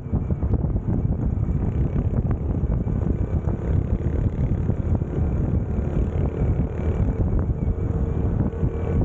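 Wind buffeting the microphone at road speed, over the steady running of a Honda CT125's single-cylinder engine.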